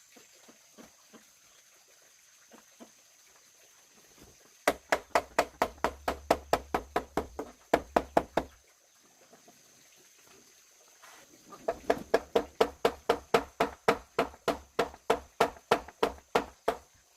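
Rapid rhythmic knocking, about five sharp strikes a second, in two runs of several seconds with a pause of about three seconds between them.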